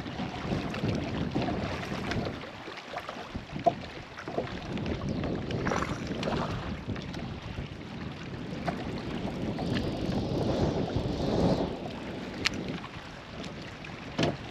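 Wind buffeting the microphone on a fishing kayak: an uneven, gusting noise that swells and dips. A few sharp clicks sound over it, the clearest about three and a half seconds in and near the end.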